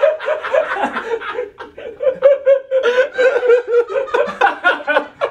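A woman laughing hard, in long runs of repeated high peals with a brief pause for breath partway through.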